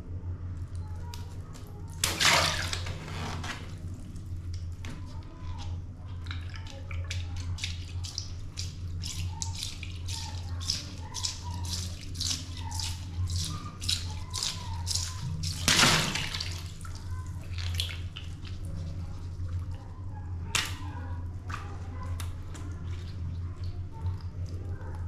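Water balloons bursting in the hand and water splashing out into a styrofoam box, loudest twice, about two seconds in and again past the middle, with a smaller burst later. Between them come many small clicks, drips and rubbery handling sounds over a steady low hum.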